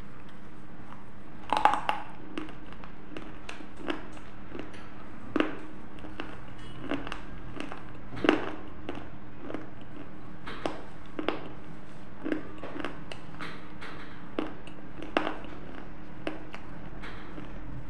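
Pieces of baked clay earthenware (clay lamp and pot shards) being bitten and chewed close to a lapel microphone: sharp crunching cracks about once a second, a few louder snaps among them, over a steady low hum.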